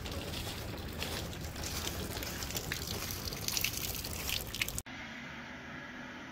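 Footsteps walking through fresh wet snow on a pavement, a run of irregular crackly steps. About five seconds in it cuts to a quieter steady hiss.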